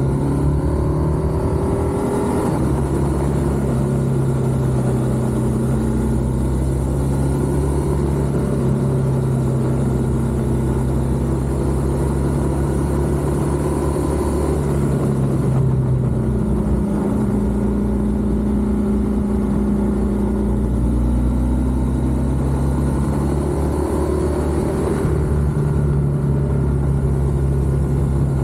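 BMW R1200GS motorcycle's boxer-twin engine running under way, its note climbing in the first couple of seconds, dropping about halfway through and climbing again near the end as the throttle changes through the bends.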